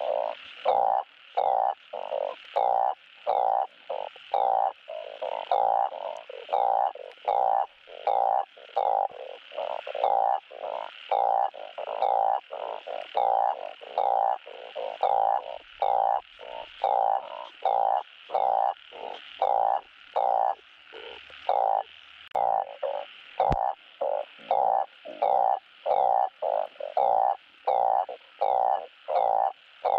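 Truncate-snouted burrowing frog (Glyphoglossus molossus) giving its mating call: a steady, evenly spaced series of short croaks, about one and a half a second, calling for a mate in the breeding season.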